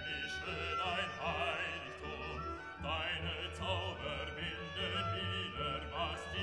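Background music: classical, with an operatic voice singing in wide vibrato over a sustained accompaniment.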